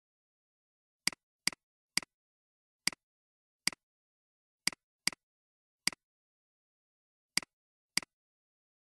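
Computer mouse button clicks: about ten sharp clicks at uneven intervals, each a quick press-and-release pair.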